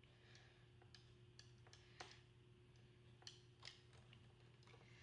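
Faint, scattered clicks and ticks of hands and a Phillips screwdriver working the side brush and its screw on the plastic underside of an iRobot Roomba 650 robot vacuum.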